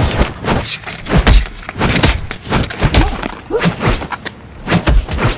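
A fistfight's punch and kick hits: a quick run of heavy thumps with whooshes, two or three a second.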